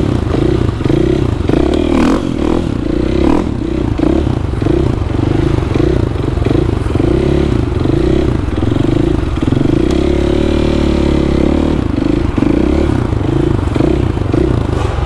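KTM supermoto engine running with the throttle pulsed about twice a second, as the rider balances the bike on its rear wheel in a wheelie. About two-thirds through, the engine holds a steady note for a couple of seconds before the pulsing resumes, with a few knocks early on and wind noise throughout.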